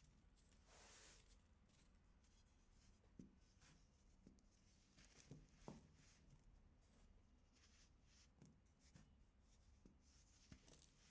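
Faint crunching of compressed baking soda being crumbled by hand: a soft gritty rustle about a second in, then a few scattered small crackles.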